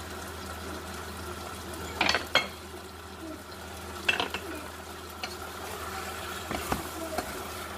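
A spoon stirring in a metal cooking pot, with two sharp knocks against the pot about two seconds in and more clinks later, over a steady background hum.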